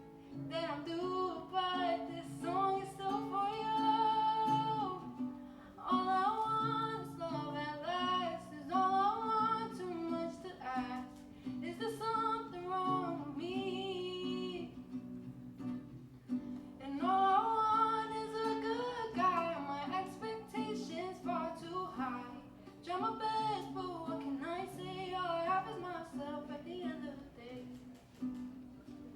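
Live female vocal singing a slow pop ballad, accompanied by strummed and plucked acoustic guitar.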